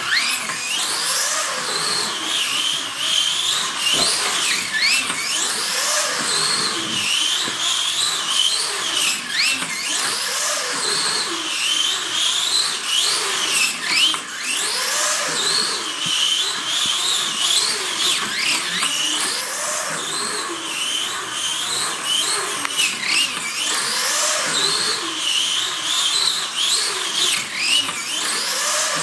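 Slot car's small electric motor whining at speed, its pitch rising and falling again and again, every second or two, as it runs laps of the track.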